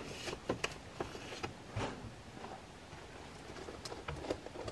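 Fingers pressing the buttons of an electronic keypad deadbolt: a series of short, soft clicks, about six in the first two seconds and a few more a little after four seconds in.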